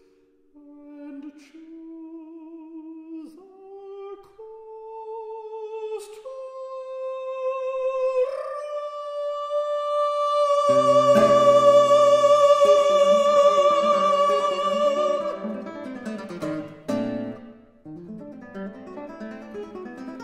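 A counter-tenor sings an unaccompanied phrase that climbs step by step to a long high note held with vibrato. A guitar comes in with plucked chords under the held note, and plays on alone after the voice stops.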